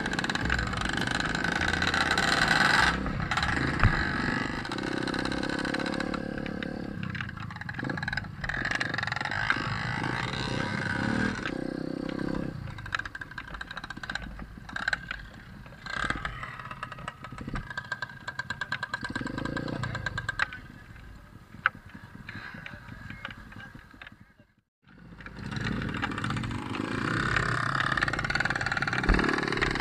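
Dirt bike engines idling and revving, with scattered knocks and clatter. The engines are quieter through the middle, the sound drops out completely for a moment about three-quarters of the way through, then the engines come back.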